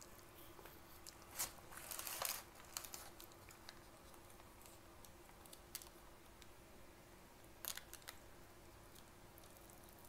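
Close-miked crinkling and tearing of a paper condiment sachet and wrapper paper. There are short, sharp rustles, with the loudest cluster about two seconds in and another near eight seconds.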